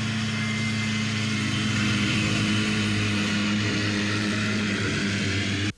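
Two small children's snowmobiles, Arctic Cat Kitty Cats, running steadily with their little engines going as they ride over snow; the engine sound cuts off abruptly near the end.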